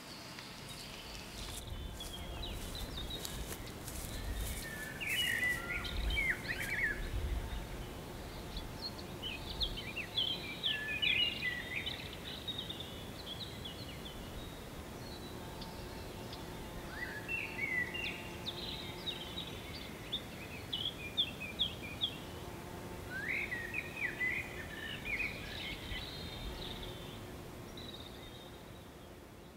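A songbird singing in quick, twittering phrases, in about four bouts of a few seconds each with pauses between. A steady low outdoor rumble runs underneath.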